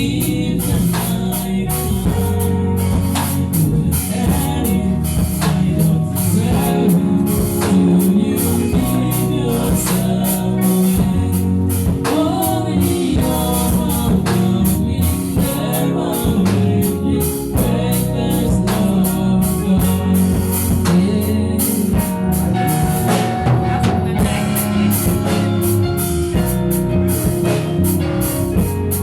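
Music with singing over a drum kit, in a gospel style, with steady drum beats throughout.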